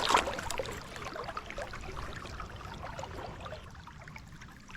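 Shallow river water rippling and splashing, with many small ticks and spatters, louder at first and fading off.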